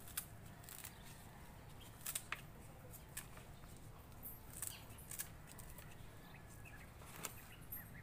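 Scissors snipping luffa (patola) shoots and leaves into small pieces: about ten short, sharp snips at an irregular pace.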